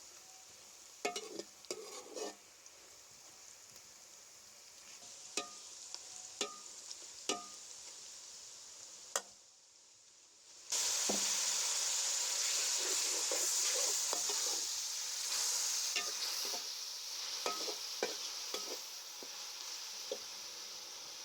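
Bitter gourd and potatoes frying in oil in a pan, sizzling steadily while a metal spoon or spatula stirs and knocks against the pan in sharp clicks. The sizzle drops off briefly a little before halfway and comes back louder.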